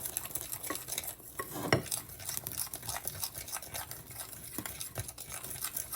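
Utensil stirring pancake batter in a bowl: a quick run of small clicks and scrapes against the bowl, with one louder knock about two seconds in.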